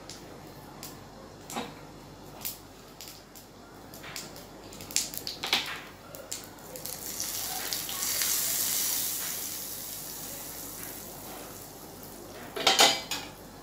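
A hot oil tadka of cumin, ajwain and asafoetida sizzling as it is poured from a small tempering ladle into a bowl: a hiss that swells about seven seconds in and fades over the next few seconds. Light taps come before it, and a metal ladle clatters against the bowl near the end.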